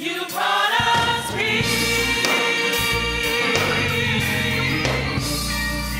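Gospel choir singing, with low bass notes underneath. After a brief drop at the very start, the voices come back in on a rising phrase and then hold full chords.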